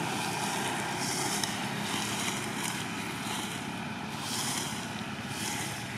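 Steady outdoor background noise with a low rumble, broken by four short bursts of high hiss.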